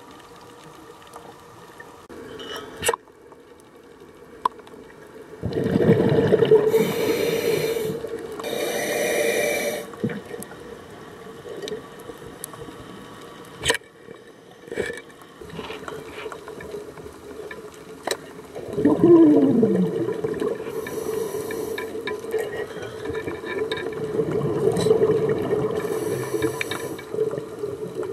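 Underwater sound of a scuba diver breathing through a regulator: several bursts of exhaled bubbles rushing past the camera housing, over a steady hum, with a few sharp clicks between.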